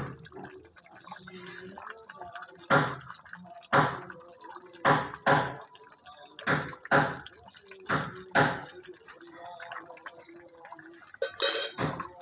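Thick chicken chaap gravy simmering in a wide metal pan, with about ten thick plops as bubbles burst at irregular intervals.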